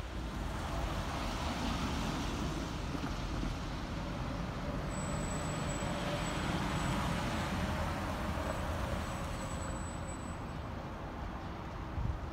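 Steady rumble of road traffic and engines, a little louder through the middle, with a brief low bump near the end.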